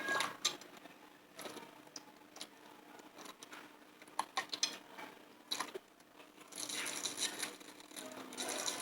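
Slime being squished and pressed by hand, giving scattered sharp clicks and crackling pops, with a denser run of crackling near the end.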